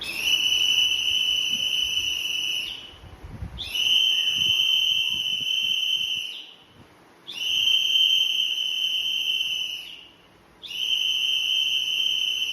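A whistle blown in four long, steady blasts of about two to three seconds each, with short gaps between, calling the pace of a slow calisthenics exercise.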